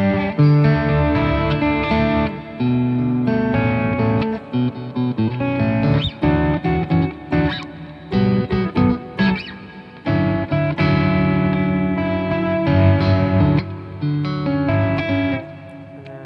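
Electric guitar on its single-coil pickup, played through a combo amp fitted with a generic stock speaker: strummed chords and picked notes ringing out, with a choppier stretch of short, cut-off notes around the middle and a quieter passage near the end.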